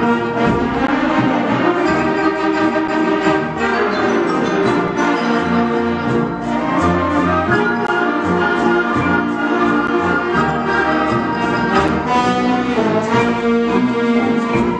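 Symphonic wind band playing a mambo loudly, with full brass and woodwinds over a steady beat.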